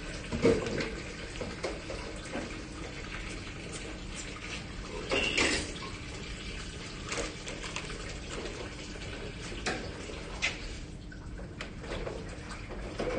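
Kitchen tap running into a sink during washing up, with occasional knocks and clatters of dishes and utensils.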